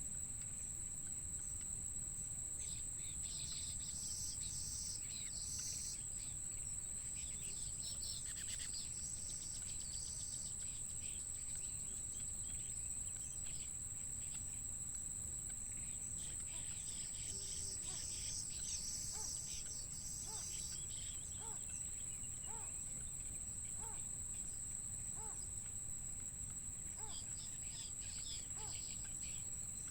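Insects droning steadily at a high pitch, with bursts of bird chirping and, in the second half, short high pips about once a second over a constant low rumble.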